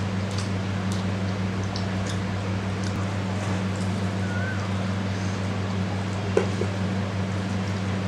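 Hand-eating sounds of rice and curry: small wet clicks and squishes of mixing and chewing, with one brief knock about six seconds in, over a steady low hum and hiss.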